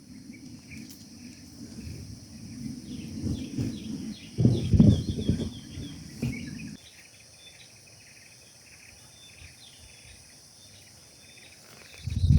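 Insects droning and birds chirping, with a low wind rumble on the microphone that swells about four seconds in and cuts off suddenly a little past halfway.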